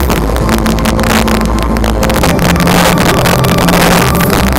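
Fireworks going off with bangs and crackling over loud music from a sound system. The crackling grows dense in the second half.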